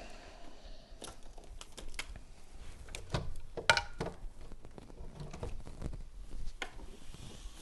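Scattered clicks and light knocks of a plastic humidifier being handled and set up, the loudest a little under four seconds in.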